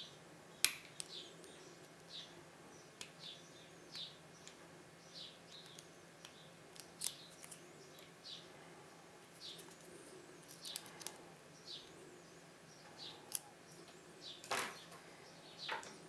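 Scattered sharp metallic clicks and taps of lock-picking tools against a euro cylinder lock, with a small bird chirping over and over in the background.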